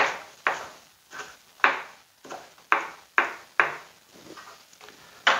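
Kitchen knife chopping spring onions on a plastic cutting board: a series of sharp knife strikes at an uneven pace, about eight in all, with a gap of over a second before a last knock near the end.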